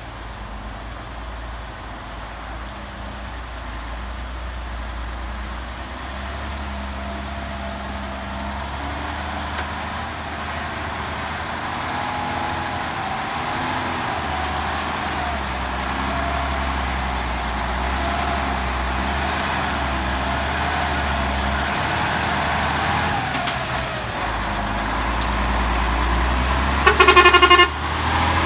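Engine of a heavy flatbed truck loaded with sawn timber running as it drives up a dirt road, growing louder as it nears and passes close by. A short loud horn blast sounds about a second before the end.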